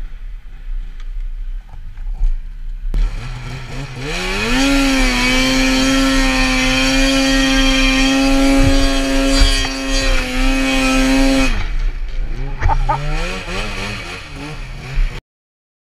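Arctic Cat snowmobile engine running low at first, then revving up about four seconds in and held at high, steady revs for about seven seconds before dropping off the throttle. A shorter rev follows, and the sound cuts off suddenly near the end.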